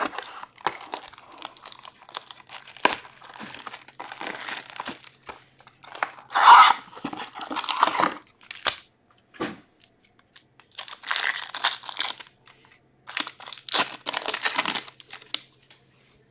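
Plastic shrink-wrap and card-pack wrappers crinkling and tearing as a sealed box of hockey cards is slit open, unwrapped and its packs ripped open: a run of irregular crackling and ripping bursts with short pauses between.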